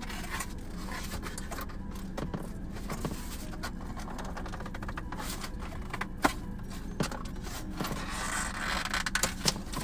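Cardboard pizza box being handled and worked open: scraping and rustling with scattered sharp clicks, the loudest about six seconds in, and a longer rustle near the end.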